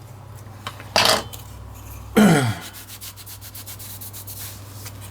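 Plastic remote-control parts and rubber keypad being handled and rubbed together during reassembly, with light clicking and rustling, busiest in the second half. A short louder burst comes about a second in, and a brief vocal sound falling in pitch about two seconds in.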